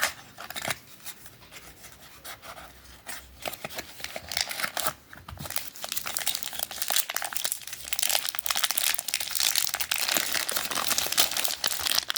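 Packaging crinkling and tearing as a padlock is unwrapped: a few faint rustles at first, then dense, continuous crackling from about four seconds in.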